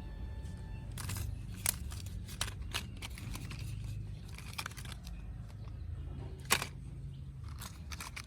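Scattered light clicks and taps over a low steady hum, the sharpest about six and a half seconds in.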